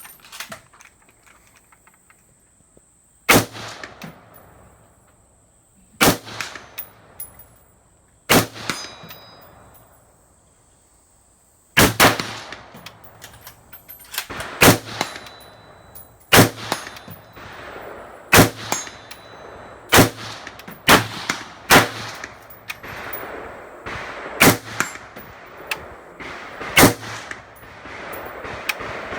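M16A1 rifle firing single aimed shots: three shots a few seconds apart, then a steadier run at about one shot a second. Fainter metallic clangs follow the shots as rounds strike steel plate targets.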